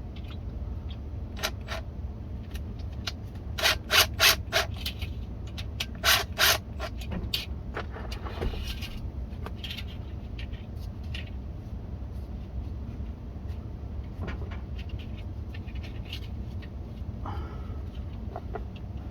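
Coupling band being worked onto a cast-iron drain pipe: rubbing and scraping, with clusters of sharp clicks or knocks around four and six seconds in, over a steady low hum.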